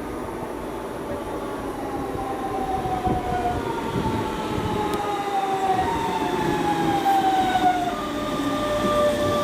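DB class 425 electric multiple unit's traction converters whining in several tones that slowly fall in pitch and step down to new pitches a few times, over the rumble of the train, growing louder as it approaches. This is the converter sound that gives the class its nickname 'Quietschie'.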